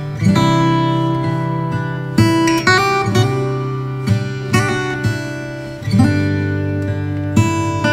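Background music: an acoustic guitar strummed and plucked, with a new chord or note struck every second or so.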